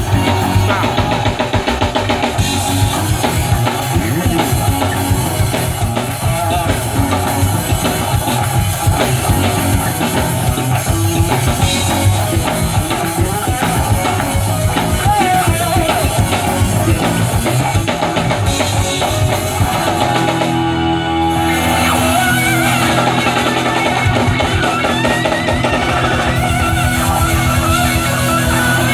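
Live band playing an instrumental stretch on drum kit, bass and electric guitar. About twenty seconds in the drums drop out for a moment and the band holds long low chords before carrying on.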